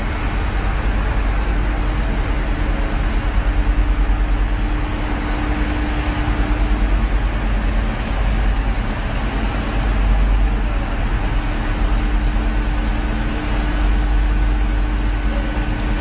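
Boat engine running steadily with a constant hum, under a heavy low rumble of wind buffeting the microphone.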